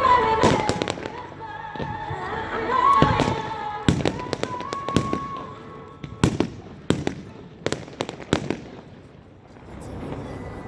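Fireworks shells bursting in a string of sharp bangs, most of them in the second half, over show music with a held, sung melody that fades out about halfway through.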